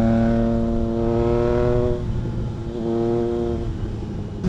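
Triumph Trident 660's three-cylinder engine through a DIY custom exhaust, riding at steady revs with the pitch slowly sinking. About two seconds in, the throttle eases off and the engine runs quieter.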